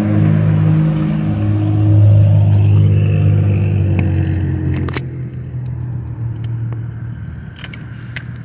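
A motor vehicle's engine running close by: a low, steady hum that swells about two seconds in and then slowly fades. A few light taps come near the middle and near the end.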